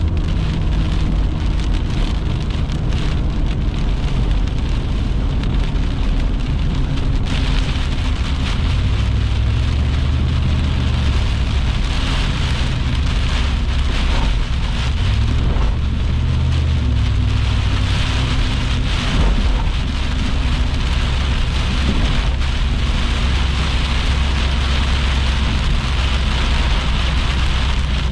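Thunderstorm rain and wind: a steady rush of rain over a deep, continuous rumble. The rain hiss gets louder about seven seconds in.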